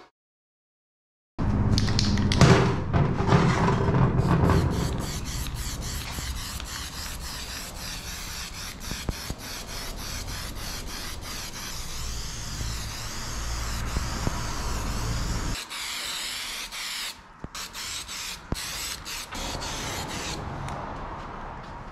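Aerosol spray-paint cans hissing as steel parts are spray-painted, starting after a second or so of silence. The hiss runs over a low rumble that stops about two-thirds of the way through, and near the end it comes in shorter bursts with brief breaks.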